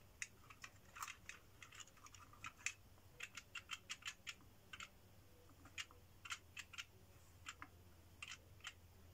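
Faint, irregular small clicks and taps of wooden parts as fingers fit the clock hands onto the central axle of a wooden clock model kit.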